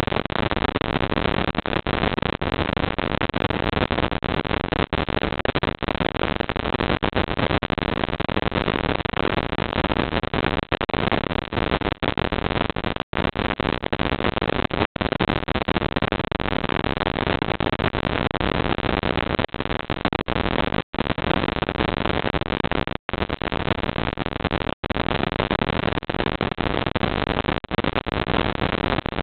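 Steady, featureless hiss from a CCTV camera's built-in microphone, cut by a few split-second dropouts to silence.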